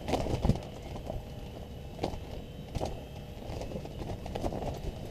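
Wind buffeting the microphone as a steady low rumble, with a few light knocks scattered through it.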